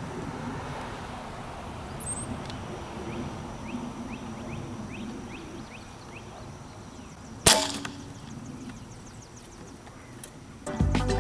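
One air rifle shot about seven and a half seconds in: a single sharp crack with a short ring after it, over a steady outdoor background with faint repeated high chirps. Music starts near the end.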